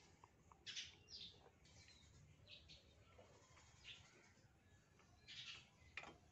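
Near silence, with faint short bird chirps about once a second and a faint click near the end.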